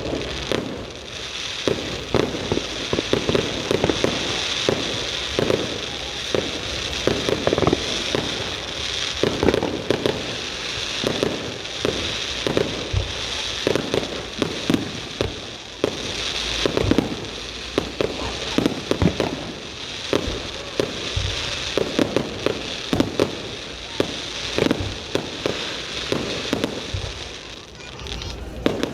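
Fireworks going off: many sharp bangs in quick succession, several a second, over a steady crackling.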